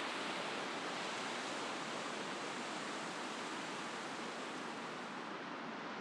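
Ocean surf breaking and washing on a beach, a steady hiss that swells slightly at the start and then holds even.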